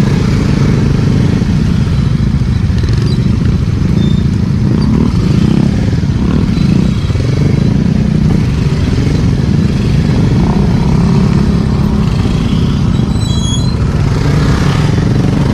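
Motor scooter engine running steadily at low road speed, heard from the rider's seat, with other scooters running close alongside.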